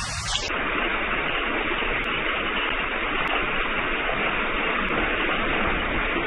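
Steady, even background hiss of outdoor noise with no distinct events. It sets in about half a second in, when the music of the previous clip cuts off.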